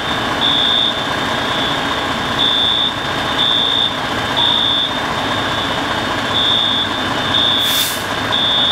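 Fire alarm evacuation signal: high beeps in groups of three, about one a second, with a longer pause between groups, over the steady idle of a fire ladder truck's engine. A short hiss near the end.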